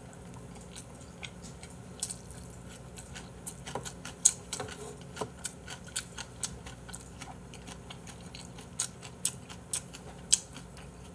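A person eating beef small-intestine hot pot and rice close to the microphone: irregular sharp clicks and smacks of chewing and chopsticks, scattered from about two seconds in, over a faint low hum.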